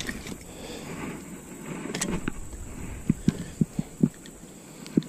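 Handling noises as a caught crappie is held and a beetle spin lure is worked out of its mouth: a sharp click about two seconds in, then a run of short, dull knocks and taps.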